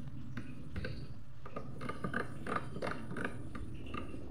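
Thermomix selector dial being turned to set the cooking time, giving a rapid run of ratcheting detent clicks in quick irregular bursts.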